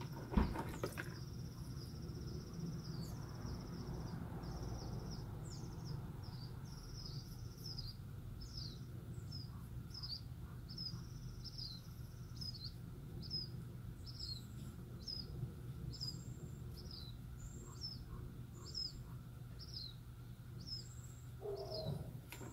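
A bird chirping over and over outdoors, short high calls about once a second, over a low steady background hum. A single sharp knock sounds just after the start.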